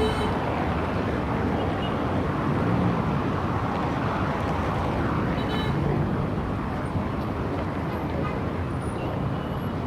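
Heavy city traffic: a steady, dense rumble of engines and tyres, with the hum of individual engines standing out now and then.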